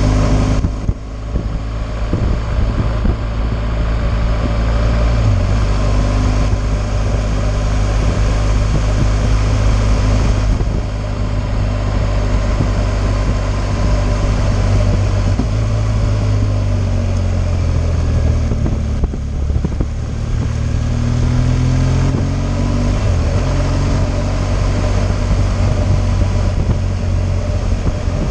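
BMW R 1200 GS liquid-cooled boxer-twin engine running at road speed, its note rising and falling several times as the throttle changes, with a steady rush of wind noise.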